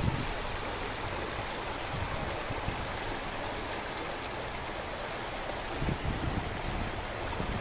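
Ocoee River water running over rocks in shallow rapids: a steady rushing hiss, with a few low wind gusts on the microphone about six seconds in.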